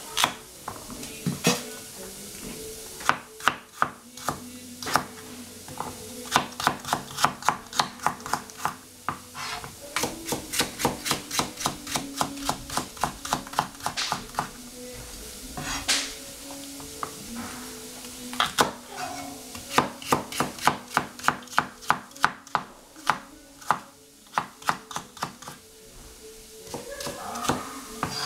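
Chef's knife slicing celery on a plastic cutting board: runs of quick, sharp knocks about three or four a second, with short pauses between runs, over a faint steady hum.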